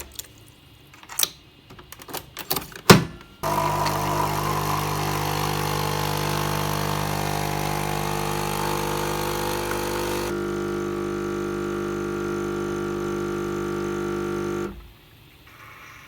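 Coffee machine being started: a few clicks and knocks, then its pump runs with a loud, steady hum and hiss for about eleven seconds. The sound changes tone near the end and then stops suddenly.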